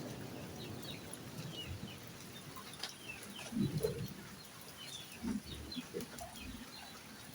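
Poultry giving a few low clucking calls, among scattered high chirps of small birds, over a faint even hiss.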